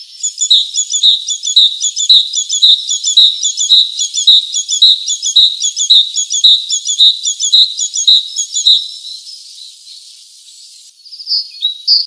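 Tufted titmouse singing: a short high note repeated about twice a second for some eight seconds, then fading, with a brief different call near the end.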